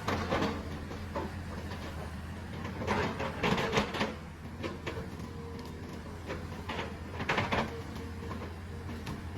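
Diesel engine of a heavy tracked machine running steadily, with clanking and rattling of metal tracks and gear twice, about three seconds in and again about seven seconds in.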